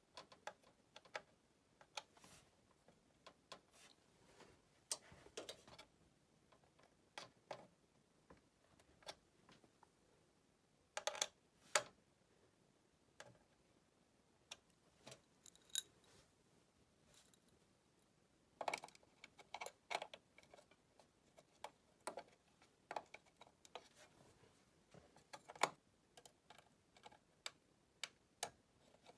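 Irregular light clicks and taps of hands handling computer hardware and small parts, with a few sharper clicks about a third of the way in and again near the end.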